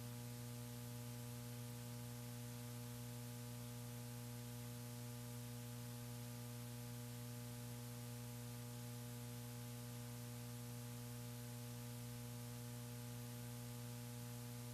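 Steady, quiet electrical hum with a faint hiss on the commentary audio line, unchanging throughout.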